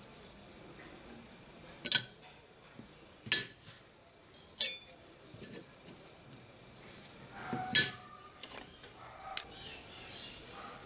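Sharp metallic clinks, four of them with a short ring, from a steel santoku blade being handled and set down on a steel bench plate.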